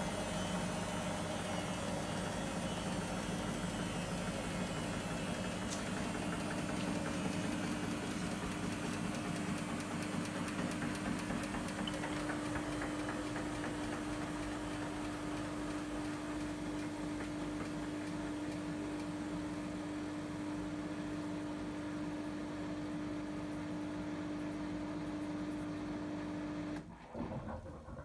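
Samsung eco bubble front-loading washing machine in a high-speed spin: the drum runs really loud and steady with a constant hum. About a second before the end the noise drops away abruptly as the drum winds down at the end of the spin.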